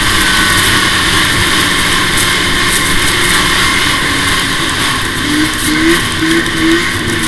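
2005 Arctic Cat F6 EFI snowmobile's 600 cc two-stroke twin running steadily at riding speed, with four short rising notes near the end.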